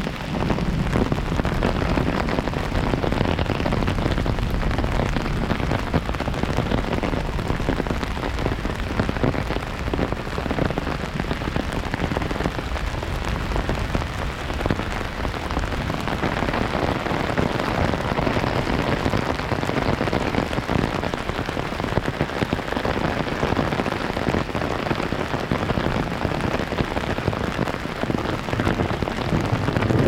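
Heavy rain falling steadily.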